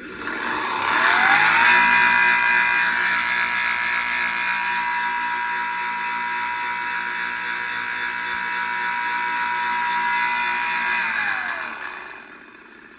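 PPA Brutalle 3.0 JetFlex industrial sliding-gate motor running with an abnormal whining noise. The whine rises in pitch as the motor speeds up in the first second or so, holds steady, then falls away as it slows and stops near the end.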